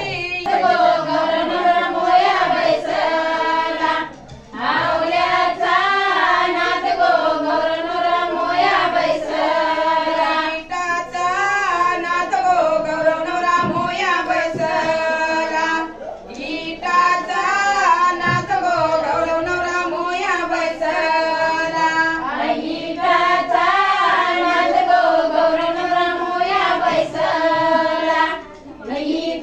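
A woman singing a song in a high voice, in long phrases with short breaks about four, sixteen and twenty-eight seconds in.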